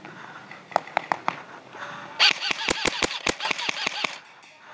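Airsoft gunfire: a few single sharp cracks about a second in, then a rapid string of about a dozen shots, roughly six a second, for about two seconds before it stops.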